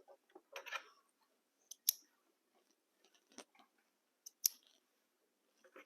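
Scattered small clicks and snips of scissors trimming threads and handling fabric after a seam is sewn, the two sharpest snips about two seconds in and again near the middle.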